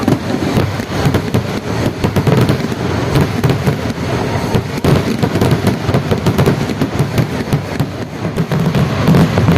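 A Kerala vedikettu fireworks barrage: a dense, unbroken run of firecracker bangs, too close together to count, that merge into a continuous loud crackle and rumble.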